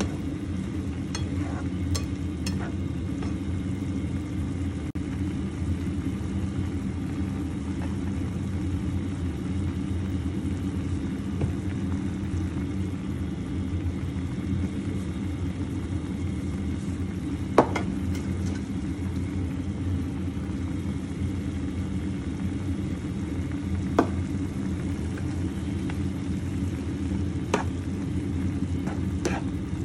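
Beef stew boiling hard in a pan of broth, a steady low rumble of bubbling, with a handful of sharp clicks of a plastic spatula against the pan.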